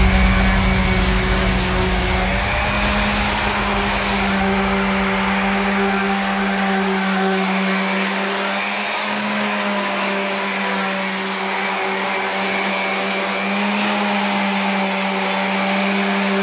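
Corded electric random-orbit sander running against carved wood: a steady motor whine over the hiss of the sanding pad, easing off a little in the middle.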